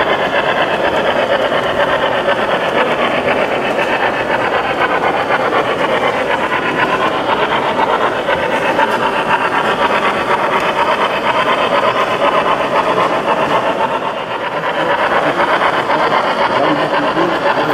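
Steady babble of many voices in a busy exhibition hall, with the running noise of a model train on its track.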